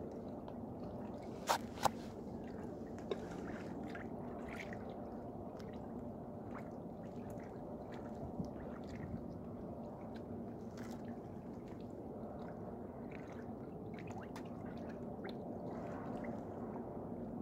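Steady low background rumble with two sharp clicks about one and a half seconds in, then a few faint ticks.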